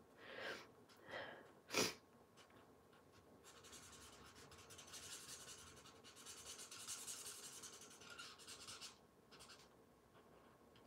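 Stampin' Blends alcohol marker tip rubbing on cardstock as an image is coloured in, a faint scratchy hiss of short strokes about three and a half seconds in until about nine seconds. A few faint short sounds come before it in the first two seconds.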